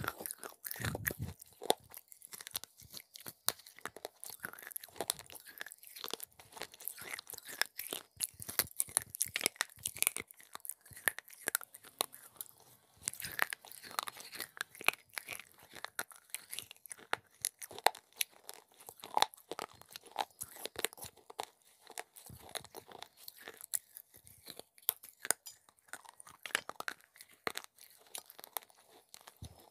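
Pieces of baked clay pot being bitten and chewed close to the mouth: dense, irregular crunching and crackling with no pause.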